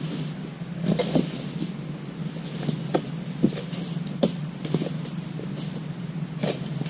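A palm-harvesting chisel (dodos) on a long pole being thrust again and again into the base of an oil palm frond: a series of irregular sharp knocks and chops, about eight of them, over a steady low hum. The cut goes hard, and the harvester wonders whether his dodos is not sharp enough.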